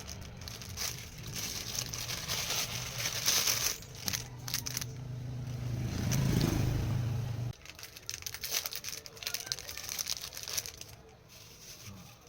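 Packaging crinkling and tearing in irregular crackles as a Naruto headband is unboxed, under a steady low hum that cuts off suddenly about seven and a half seconds in.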